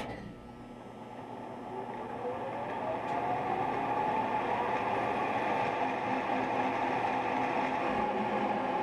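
Milling machine switched on with a sudden clunk. Its spindle motor spins up, the whine rising in pitch and growing louder over about three seconds, then running steadily at speed.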